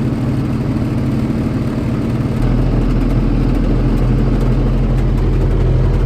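Farm tractor's engine running steadily, heard from inside the cab; about two and a half seconds in, a deeper low rumble comes in and the engine grows a little louder and stays there.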